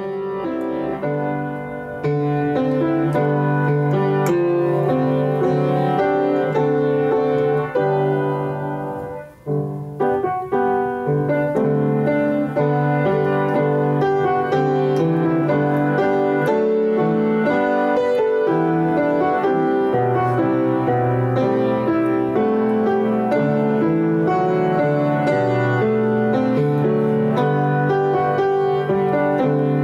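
Instrumental piano music: sustained chords and melody, with a brief pause about nine and a half seconds in.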